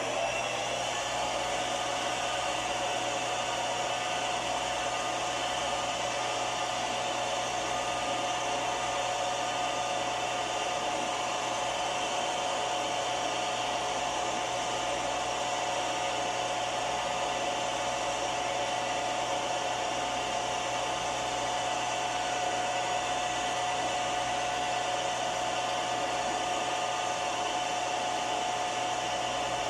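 Milling machine spindle running at a steady speed with a steady whine while drilling a small retaining hole in a pin. The sound drops away right at the end.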